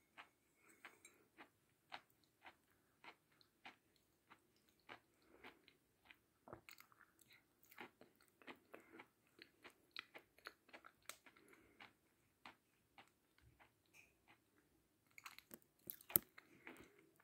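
Faint close-up chewing of a chunk of edible chalk: a string of small, crisp crunches at an uneven pace, coming thicker and louder near the end.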